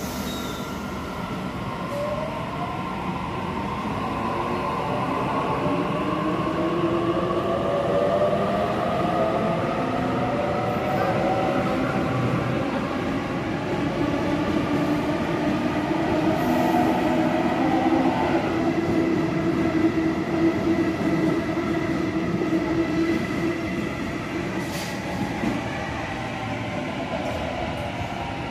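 Sydney Trains Waratah B-set double-deck electric train pulling away from the platform and running past, its traction motors whining in several tones that glide up in pitch as it gathers speed, over steady wheel-and-rail noise.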